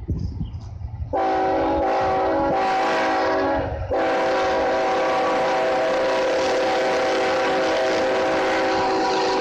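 Ferrosur diesel locomotive's multi-note air horn sounding a chord: a blast of almost three seconds starting about a second in, a brief break, then a long held blast. A low rumble comes before the horn starts.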